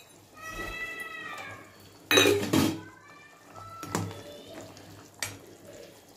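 A cat meowing twice in long, drawn-out calls, mixed with sharp metallic clatters of pots and utensils, the loudest about two seconds in.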